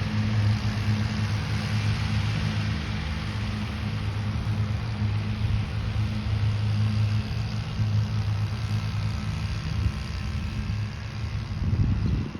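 Lawn mower engine running steadily with an even hum, dropping away right at the end.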